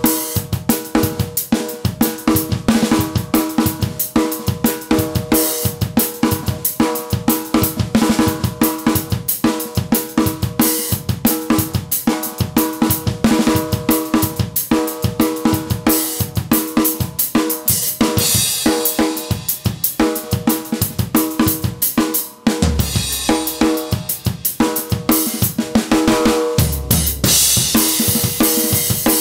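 Acoustic drum kit played on its own in a rock groove: a steady beat of kick drum, snare and hi-hat. About two-thirds of the way in, crash cymbals ring out over the beat for a few seconds, then the playing drops away for a moment. Crashes come in again near the end.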